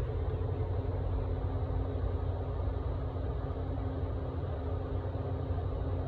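Steady low rumble with a faint constant hum, unchanging throughout, like a running motor or distant traffic; no cicada song is heard.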